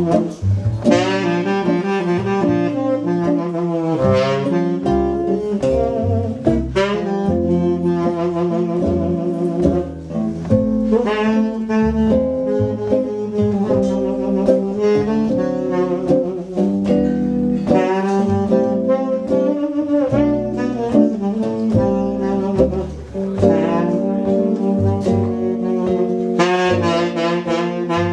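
Small jazz band playing with a saxophone taking the lead line, accompanied by archtop guitar and double bass; no vocals.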